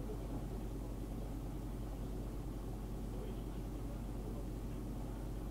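Steady low hum under an even hiss of background noise from an old tape recording, with faint, indistinct voices now and then.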